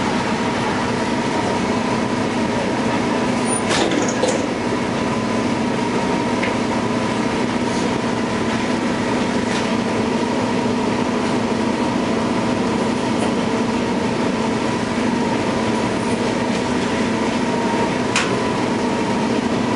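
Onboard sound of a 2000 New Flyer C40LF CNG city bus running, its Detroit Diesel Series 50G natural-gas engine and drivetrain giving a steady drone with a thin steady whine. A sharp knock comes about four seconds in, and a click near the end.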